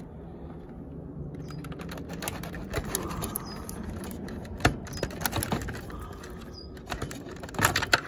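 Scattered plastic clicks and knocks as a latched wiring connector is pressed, worked loose and pulled up off a washing machine's control board, with a few sharper clicks near the middle and a cluster near the end, over a steady low hum.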